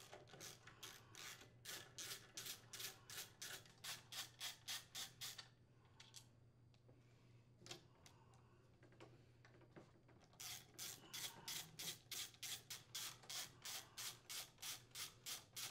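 Socket ratchet clicking as it backs out the crankcase cover screws on a Briggs & Stratton small engine, in two runs of about four clicks a second, with a pause of a few seconds and a few stray clicks between them.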